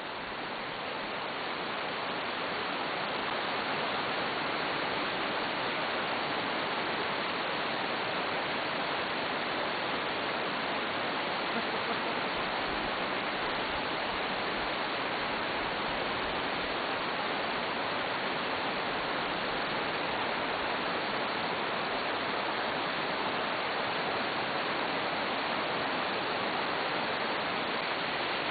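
Fast spring water rushing and splashing down over rocks in a small cascade, a steady hiss with no tones, getting a little louder over the first few seconds as it draws closer.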